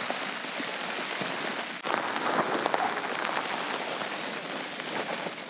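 Heavy rain drumming on the fabric of a dome tent, heard from inside: a dense, steady patter of drops.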